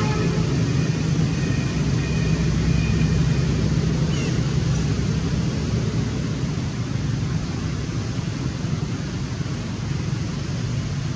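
A motor vehicle's engine running steadily nearby as a low hum, easing off slightly after about six seconds.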